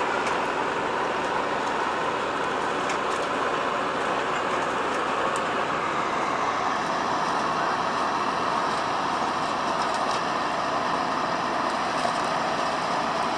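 Harvest machinery running steadily, an even mechanical noise with a few faint clicks and knocks.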